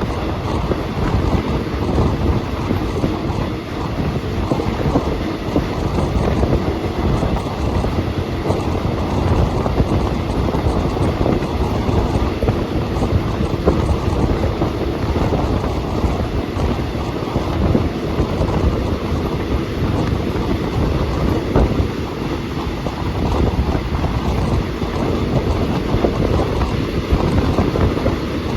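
Moving passenger train heard from on board: a steady rumble of wheels on the rails with clattering from the carriage.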